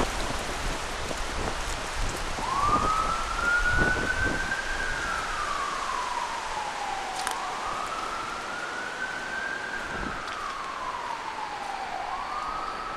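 A siren wailing, rising and falling slowly about every five seconds, starting about two and a half seconds in. Wind gusts rumble on the microphone during the first few seconds.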